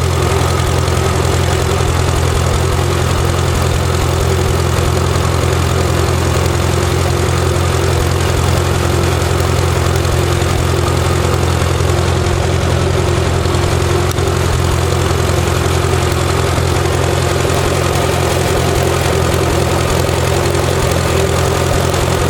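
John Deere 2010 tractor engine running steadily at an even speed.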